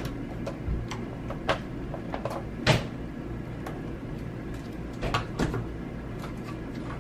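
Fluffy slime poked and pressed by fingers on a tabletop, giving scattered soft pops and clicks, the loudest a little under three seconds in and a few more about five seconds in, over a steady low hum.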